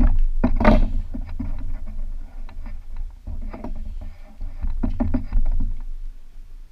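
Plastic-tipped spring clamps being fitted by hand onto a white plastic armor piece. A quick run of clicks and knocks comes from the clamps and the plastic shell, with the loudest knock just under a second in, over a steady low rumble.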